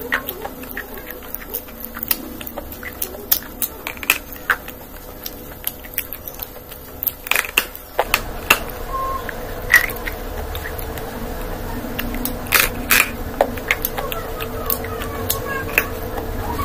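Close-up eating sounds: crunchy bites and chewing of fried food, a string of sharp crackling crunches at uneven intervals.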